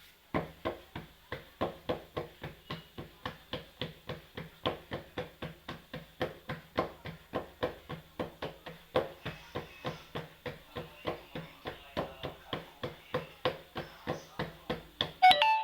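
Knife chopping on a cutting board in a steady rhythm, about three to four strokes a second. Near the end comes a louder metallic clatter that rings briefly.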